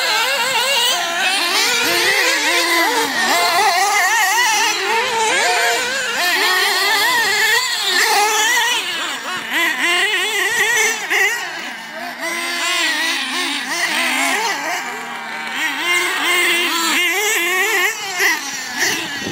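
Several radio-controlled buggies and truggies racing, their small nitro engines revving up and down in a constant overlapping, warbling buzz.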